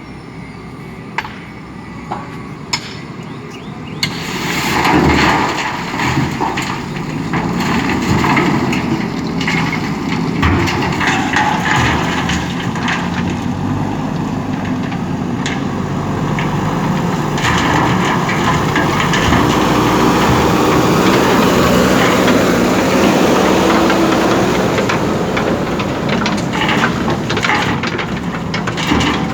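JCB 3DX backhoe loader's diesel engine working hard, its pitch rising and falling with the load, with frequent knocks and clatter. A few sharp clicks come first, and the engine grows loud about four seconds in.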